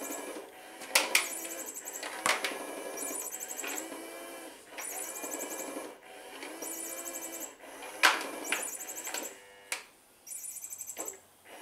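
Small battery motor of a pop-up cat toy whirring in repeated stop-start runs of about a second or so each, with several sharp knocks in between and a short pause near the end.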